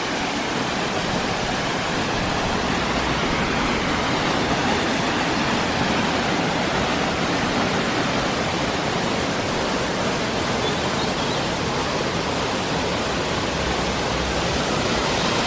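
Prag waterfall gushing down: a steady, unbroken rush of falling water.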